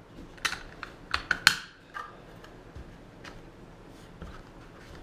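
Plastic clicks and rattles of a GoPro camera's clear housing and mount parts being handled and fitted together: a quick cluster of sharp clicks in the first two seconds, then a few light ticks.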